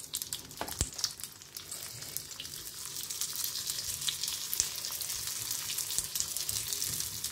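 Hot oil sizzling and crackling in the cavities of a cast-iron appam pan as peanut-and-potato balls are set into it, with a sharp click a little under a second in. The sizzle grows louder over the first few seconds as more balls go in, then holds steady.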